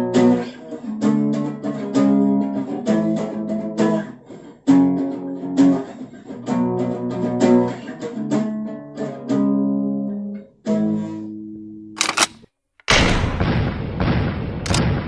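Acoustic guitar being strummed, chords ringing between strokes. About twelve seconds in the playing stops, and a loud hiss-like noise follows.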